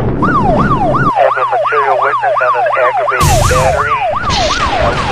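Emergency-vehicle siren in a fast repeating sweep: each cycle jumps up and glides down, about three times a second. Bursts of rushing noise swell in about three seconds in and again near the end.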